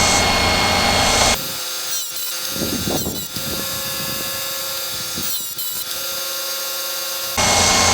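Chicago Electric chain sharpener grinding a chainsaw chain tooth with a harsh hiss that stops about a second and a half in. The motor keeps whining while the chain is moved on, with a few faint knocks. Grinding starts again near the end.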